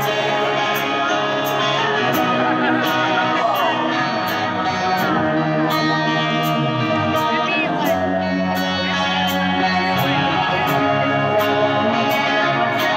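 Live rock band playing, with electric guitar and bass, and a steady tick keeping time a little under twice a second.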